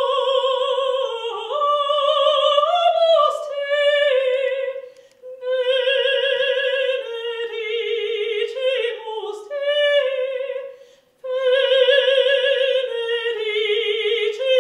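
A mezzo-soprano singing unaccompanied in operatic style, with strong vibrato. She sings in three phrases, with short breaks for breath about five and eleven seconds in.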